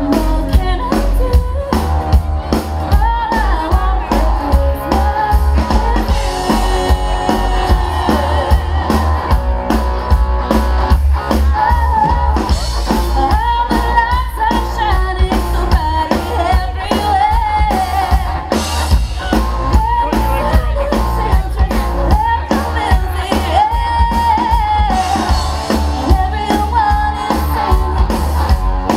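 Live rock band playing a song: a singer on a microphone over electric guitar and a drum kit, with a heavy low end.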